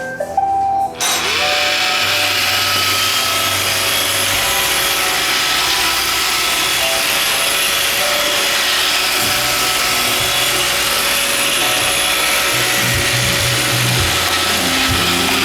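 iRobot Roomba 530 robot vacuum starting: a short beeping tune, then its vacuum motor and brushes spin up with a rising whine and run with a steady whirring hiss.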